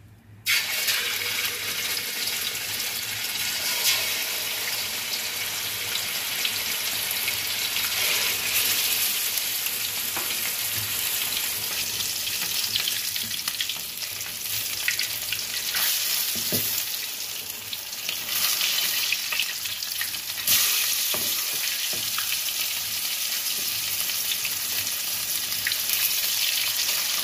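Marinated mackerel slices shallow-frying in hot oil in a metal kadai: a steady, loud sizzle that starts suddenly about half a second in as the fish goes into the oil. Occasional clicks and scrapes come from metal tongs and a spatula turning the pieces against the pan.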